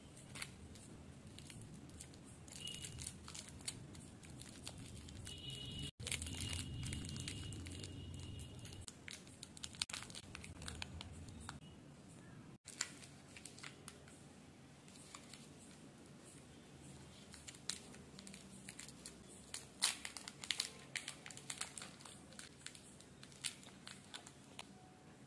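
Plastic candy wrappers crinkling and tearing as individually wrapped sweets are unwrapped by hand, in two spells of dense crackling.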